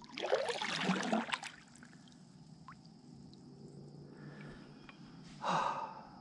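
Kayak paddle blade splashing and churning the water, a long splash at the start and a shorter one near the end.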